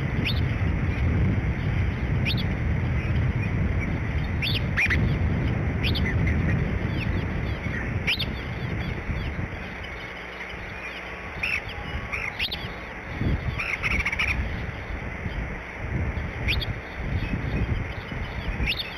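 Scattered short, high bird chirps every second or two over a steady low outdoor rumble, which is heavier in the first half and eases about halfway through.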